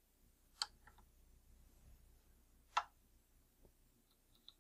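Two sharp metal clicks about two seconds apart, with a faint tick near the end, from the parts of a KitchenAid Spiralizer attachment being handled with the mixer switched off. The cutter assembly has just been released and pulled forward along its threaded rod.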